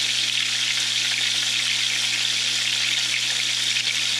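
Batter-coated razor clam strips sizzling steadily in shallow hot oil in a frying pan, a dense even hiss with fine crackle. A faint steady low hum sits underneath.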